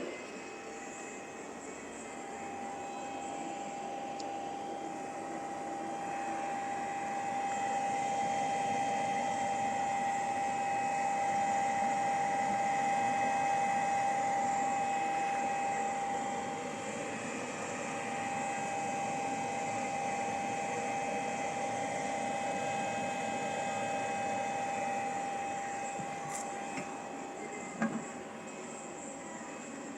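Desktop CNC milling machine running: its spindle gives a steady high whine that comes in about two seconds in, under a running machine noise that swells and then eases a little. There is a short knock near the end.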